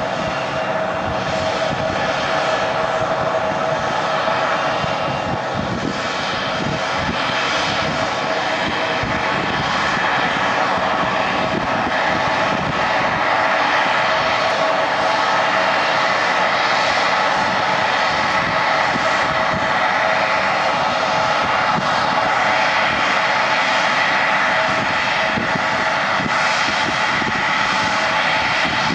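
Embraer 175 airliner's twin GE CF34-8E turbofan engines running at taxi power: a steady whine with several held tones over a rushing hiss, growing a little louder over the first few seconds as the jet turns toward the listener.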